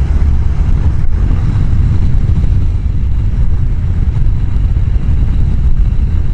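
Steady loud low rumble of rushing air on a helmet-mounted microphone sitting behind the chin-bar air vent, while riding a Honda CBR1000F motorcycle at road speed. The bike's running noise is buried under the wind.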